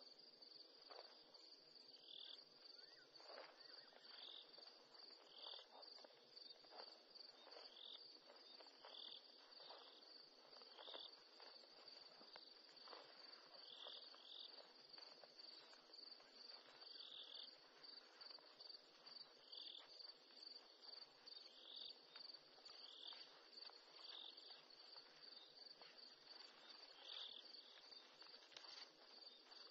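Faint night chorus of crickets: one continuous high trill, with a second, lower chirp repeating about every second and a half to two seconds. Scattered faint clicks and rustles run underneath.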